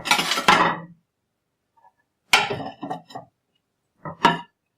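Dishes being stacked: three bursts of clattering and clinking, the first about a second long, another at about two seconds in and a shorter one near the end.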